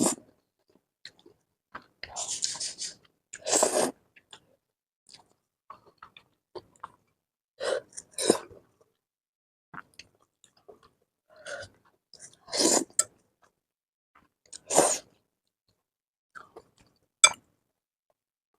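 A person eating 2x spicy instant noodles: chewing and slurping, broken by several sudden, short, loud breathy bursts a few seconds apart.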